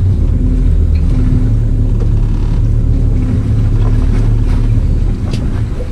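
Fishing boat's engine running with a deep, steady low drone, louder under power, then easing back a little about five seconds in.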